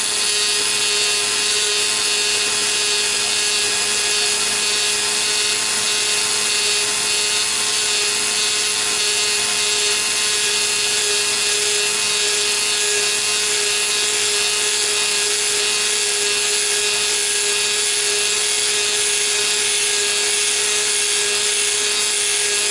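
Dremel flex-shaft tool post grinder spinning an abrasive stone inside the bore of a lathe-mounted ER32 collet chuck, grinding the bore: a steady whine with a continuous grinding hiss that does not change.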